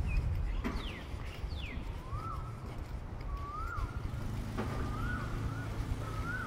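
Birds calling: two sharp falling whistles about a second in, then one bird repeating a short rising-and-falling call every second or so, over a steady low rumble of outdoor background noise.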